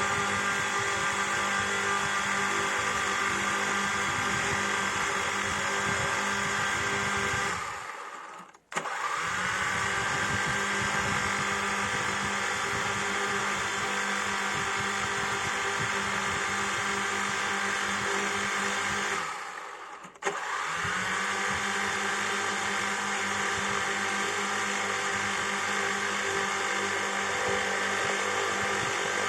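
Quadcopter drone rotors running with a steady, many-toned whine. Twice the sound fades away and comes straight back, its pitch rising as the motors spool up again.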